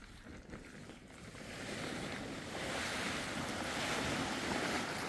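Large plastic tarp dragged across dry dirt, a rustling, scraping hiss that grows louder about a second and a half in and then holds steady.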